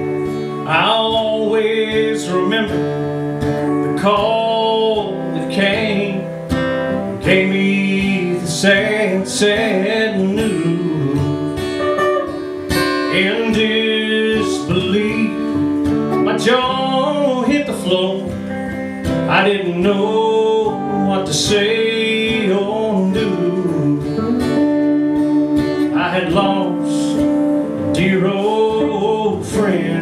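Live song: a man singing over a strummed acoustic guitar, with an electric guitar playing lead.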